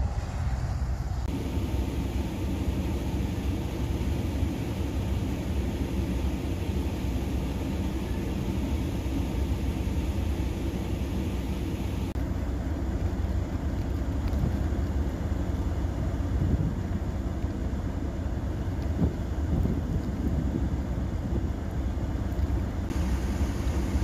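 Steady low rumble and hiss of wind buffeting the microphone in a snowstorm, with abrupt changes in tone about a second in, halfway through and near the end.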